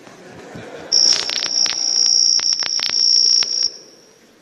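A steady high-pitched tone starts about a second in, holds for nearly three seconds, then fades out. About a dozen sharp irregular clicks sound over it.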